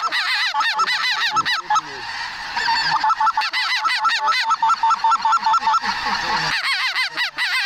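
A large flock of snow geese calling overhead: a dense chorus of many overlapping honks, with a brief lull about six seconds in.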